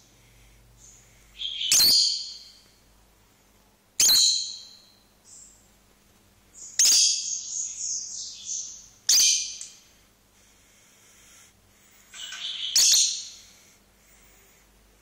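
Lovebirds giving loud, sharp, high-pitched calls: single shrieks about 2, 4 and 9 seconds in and a longer run of chattering calls around 7 to 8 seconds, with another burst near the end.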